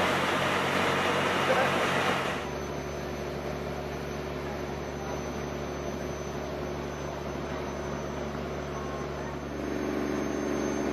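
Ferry engine running with rushing wind and water noise, cut off abruptly about two seconds in by a quieter, steady engine drone. Near the end a second, higher engine hum comes in.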